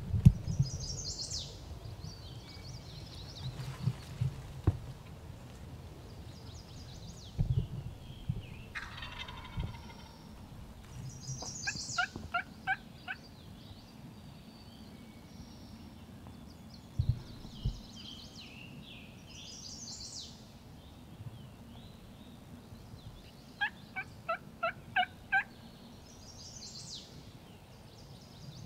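Turkey calling: two runs of six or seven short, evenly spaced notes, about twelve seconds apart, with songbirds singing and a few soft thumps.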